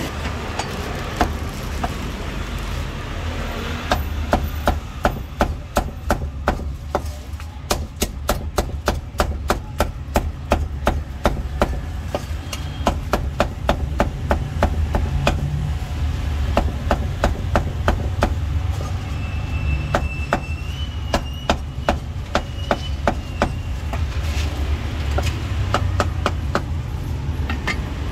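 Cleaver chopping crispy roast pork on a thick round wooden chopping board: a long run of sharp knocks, several a second, starting about four seconds in.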